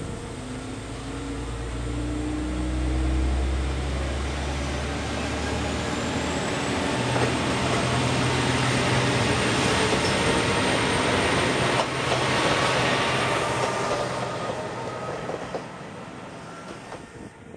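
Heisei Chikuho Railway 400-series single-car diesel railcar, car 408, approaching and running past close by, its engine note rising over wheel-on-rail noise. The noise builds to a peak about two-thirds of the way through, then fades quickly as the railcar moves away.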